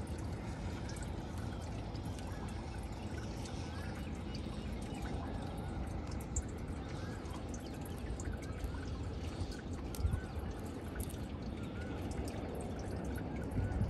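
Lake water lapping and trickling against the side of a small boat, with a steady low rumble.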